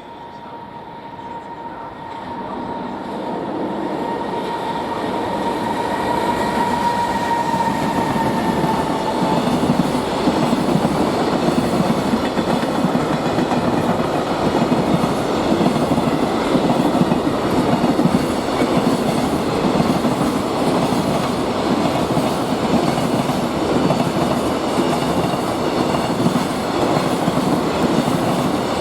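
Freight train approaching and passing at speed. The wagons' wheels rumble and clack over rail joints, growing louder for about ten seconds and then holding steady while the train runs alongside. A steady high tone sounds through the first nine seconds and dips slightly in pitch as it stops.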